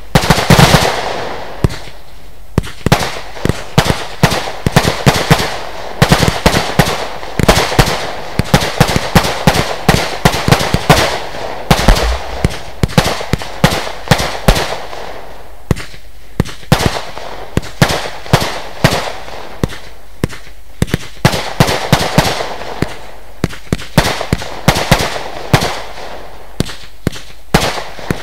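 A Lesli Dezemberfest 512-shot, 20 mm compound firework firing in rapid succession: dense runs of sharp bangs and pops, with brief lulls between the clusters.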